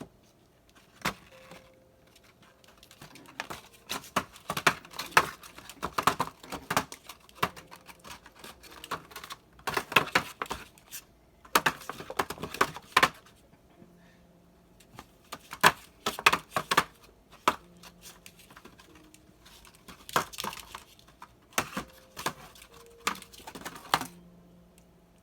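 Small cardboard box crackling and scraping in quick bursts as a young pet bites and shakes it, with short quiet pauses between the bursts.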